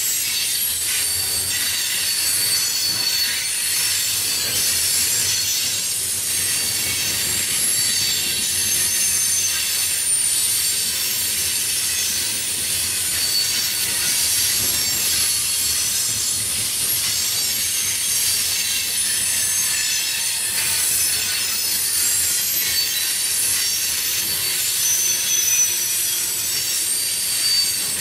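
Railroad cars rolling past, their steel wheels squealing against the rails with a steady high hiss and short high-pitched squeals coming and going.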